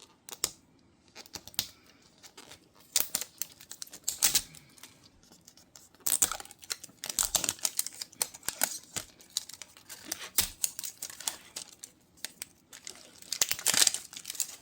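Crinkling plastic wrap and small plastic clicks and rustles as a Mini Brands capsule ball is handled and unwrapped, in irregular bursts.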